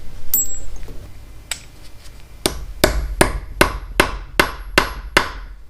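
Hammer striking metal about eight times in an even rhythm, each blow ringing briefly, tapping a screw extractor (easy out) into a seized screw in a rusted motorcycle engine case. A few faint clicks come first.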